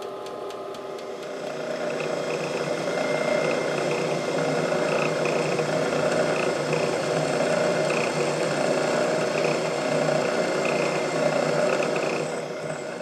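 Drill press running, its bit cutting into the side of a metal end mill holder to drill the hole for a set screw: a steady machine whir that dies away at the very end. For the first second or so the lathe is heard instead, with a reamer in the holder's bore.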